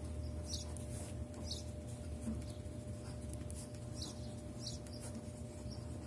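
A pen writing on notebook paper: short, faint scratching strokes, about one or two a second, over a steady low hum.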